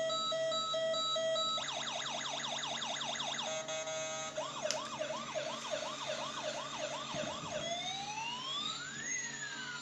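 Electronic siren cycling through several patterns: a steady pulsed beep, then fast repeated falling yelps about a second and a half in, then quick rising whoops about three a second, then a slow wail that rises and falls near the end.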